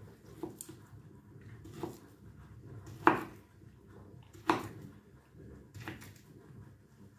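Kitchen knife slicing a ham and knocking down onto the cutting board, a handful of separate knocks. The two loudest come about three and four and a half seconds in.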